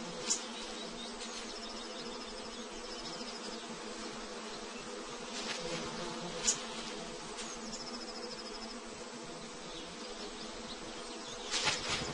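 Bees swarming around a nest raided by a honey buzzard, buzzing steadily, with a few short, sharp high chirps over the top.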